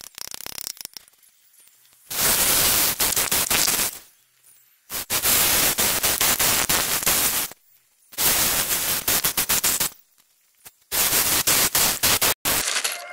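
Hammer drill boring into a concrete slab in four bursts of about two seconds each, a rapid rattling hammering with pauses between holes, drilling anchor holes to bolt down bandsaw-mill rails.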